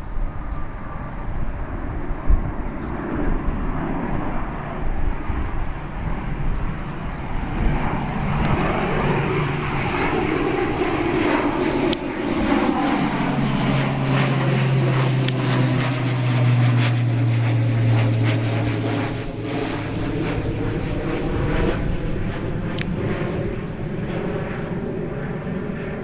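ATR 72-500 turboprop with six-blade propellers climbing out and passing low overhead: a propeller drone with a steady low hum that drops in pitch as it goes by, loudest in the middle, then fading. Wind buffets the microphone throughout.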